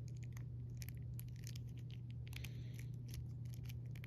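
Plastic action figure being handled and posed: scattered small clicks and rubbing as its arm joints are bent. A steady low hum runs underneath.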